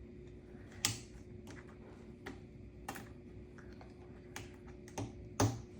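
Small plastic kit parts clicking and tapping as they are handled and fitted together while building a toy lock box's key: about six irregular sharp clicks, the loudest about a second in and near the end, over a faint steady hum.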